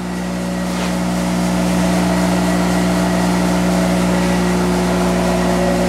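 Monarch 10EE lathe running in reverse at about 400 rpm during its warm-up, the spindle drive, headstock gearing and feed rod turning while oil is pumped to the headstock bearings. A steady mechanical hum with several steady tones, growing a little louder over the first couple of seconds and then holding level.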